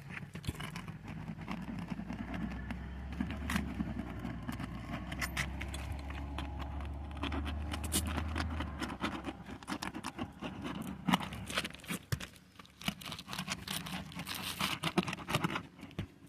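Hand tools scraping and clicking against roof shingles as nails are pried loose, in many short irregular scrapes and ticks. A vehicle engine hums low in the background and fades out about nine seconds in.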